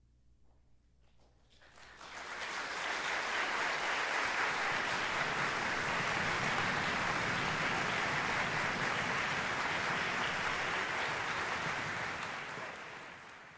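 Audience applause. A few scattered claps first, then it swells about two seconds in to full, steady clapping, and it fades out near the end.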